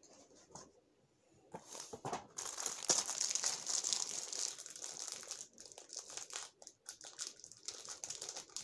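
Clear plastic wrapping on a pack of folders crinkling and tearing as it is pulled open by hand, starting about a second and a half in.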